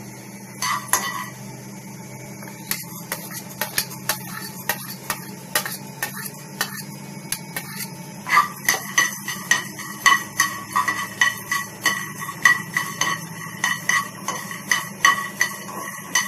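Spoon stirring peanuts and coriander seeds as they dry-roast in a pan over a high flame. There are scattered scrapes and clicks at first, then from about eight seconds in a regular run of ringing clinks against the pan, two or three a second, over a steady low hum.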